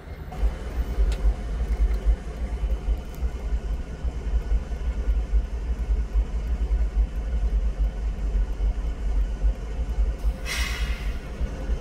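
Diesel-electric locomotives idling with a low, uneven rumble. About ten seconds in there is a short hiss of air.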